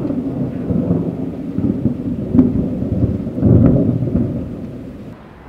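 Thunder rumbling. A sharper crack comes about two and a half seconds in, the loudest rumble follows a second later, and it dies away near the end.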